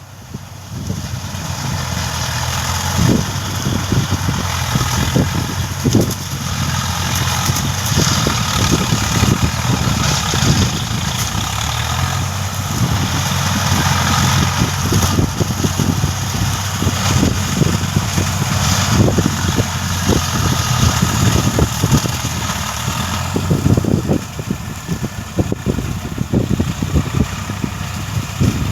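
Swaraj 744 FE tractor's diesel engine running steadily, with frequent short knocks and clatter over it; it picks up just after the start and eases slightly near the end.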